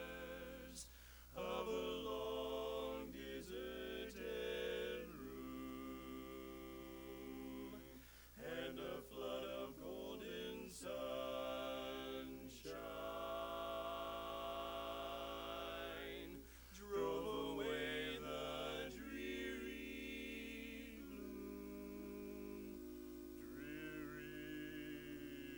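Barbershop quartet singing a cappella: four men's voices in close harmony, phrases broken by short breaths, ending on a long, quieter held chord.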